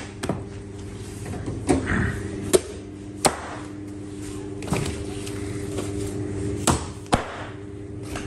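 Large butcher's knife striking a wooden cutting block as a lamb carcass is cut apart, about seven sharp knocks spread unevenly. A steady hum runs underneath.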